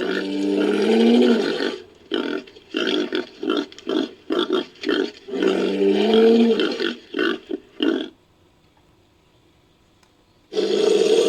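Invented creature vocalisations for a Daeodon–Hyaenodon hybrid beast, edited together from existing prehistoric-animal sound effects. A long roar is followed by a run of short grunts, then a second long roar and more grunts. After a pause of about two seconds, another roar begins near the end.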